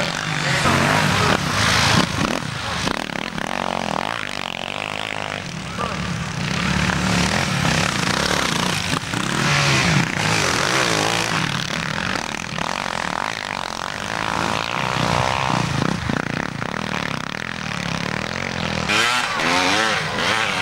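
Motocross bikes racing past on a sand track, their engines revving up and down as they go by.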